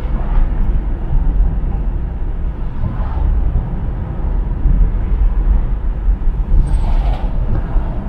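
Steady low rumble of a car driving at speed, tyre and engine noise heard from inside the cabin. A brief hiss rises over it about seven seconds in.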